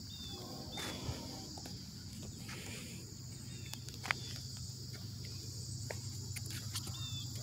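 Steady high-pitched insect chorus, with a few short high chirps and faint clicks over a low steady hum.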